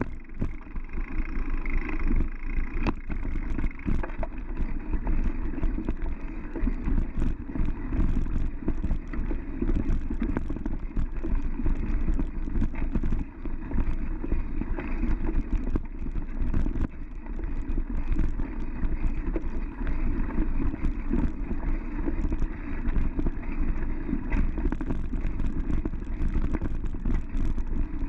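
Mountain bike riding fast over a dirt trail: constant rumbling wind buffeting on the action camera's microphone, with frequent clicks and knocks as the bike rattles over bumps.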